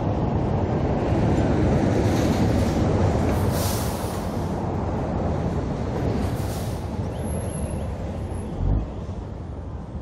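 Heavy truck pulling empty flat-top trailers driving past: a steady rumble of diesel engine, tyres and rattling trailers on the highway, loudest a few seconds in and fading as it moves off. Two short hisses come about four and six and a half seconds in, and a short low bump near the end.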